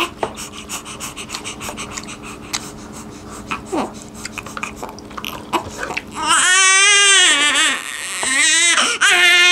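Newborn baby crying, with loud, high wails starting about six seconds in: one long cry, then shorter ones in quick succession. Before that, small clicks and smacks from people eating with their hands.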